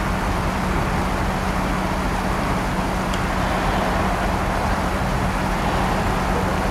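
Steady rush of creek water running over rocks, with a steady low engine drone beneath it.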